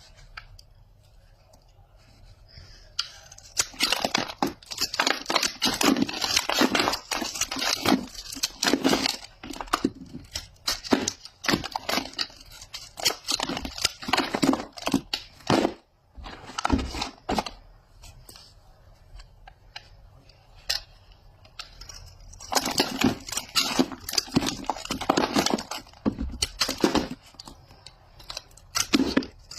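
Wrapper of a Lux soap bar being torn open and crumpled by hand, in long stretches of crinkly rustling and tearing with short pauses between.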